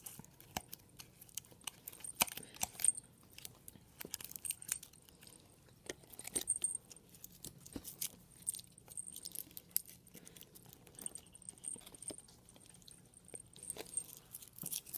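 Small jingle bell in a cat wand toy's ball jingling in short stretches as the wand is handled, among light clicks and rustling.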